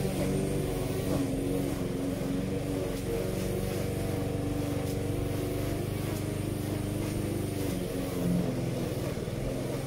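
Small petrol engines of a push lawn mower and a string trimmer running steadily while cutting grass.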